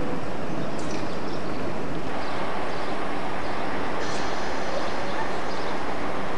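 Steady rushing noise of trains moving through a railway station, with a couple of faint higher scrapes about a second in and again around four seconds.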